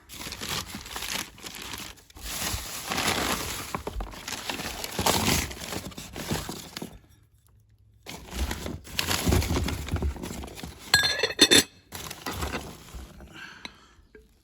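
Items being handled and rummaged through in a box of glassware: stretches of rustling and shifting, with a short break about halfway, and a sharp glass clink with a brief ring about three quarters of the way through.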